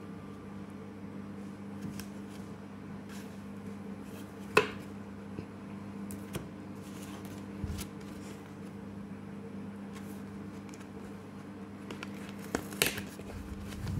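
Pokémon trading cards being handled and set down on a playmat: soft card and cardboard rustling with a sharp tap about four and a half seconds in and a couple more clicks near the end, over a steady low hum.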